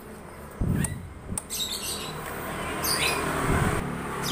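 Handling sounds of tools and parts on a Honda Supra 125 FI engine during cam chain tensioner work: a dull knock about half a second in and another past three seconds, with scraping and short high squeaky chirps between.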